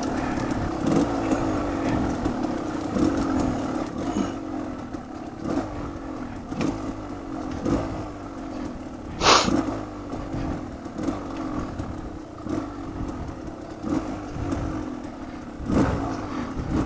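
Off-road motorcycle engine running at low to moderate revs, its pitch wavering as the throttle changes, with frequent knocks and clatter from the bike being ridden over rough ground. There is one brief sharp sound about nine seconds in.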